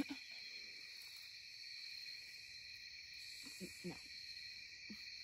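A steady, high-pitched chorus of night insects trilling without a break, with a few brief faint low sounds about three and a half seconds in.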